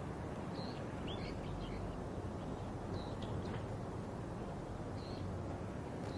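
Outdoor ambience: a steady background hiss with a few brief, high bird chirps scattered through it.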